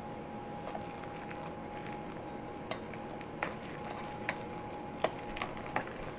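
A fork stirring a thick mashed-banana and flour batter in a stainless steel mixing bowl. It clinks sharply against the metal about six times in the second half, over a faint steady hum.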